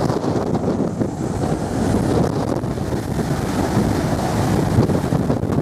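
Jet blast from an airliner's engines blowing across the runway end and buffeting the microphone: a loud, steady, gusty rush of wind noise.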